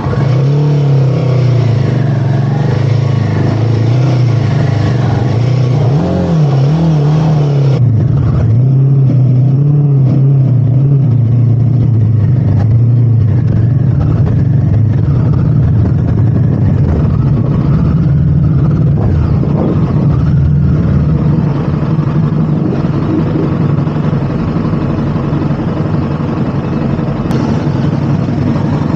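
A Royal Enfield Himalayan 450's single-cylinder engine runs under load on a rough off-road climb, its revs rising and falling unevenly as the throttle is worked.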